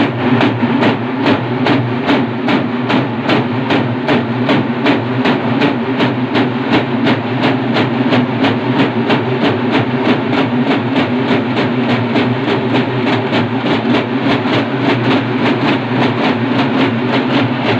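A large troupe of Urumulu folk drummers playing together: fast, even drum beats, about three to four a second, over a steady low drone.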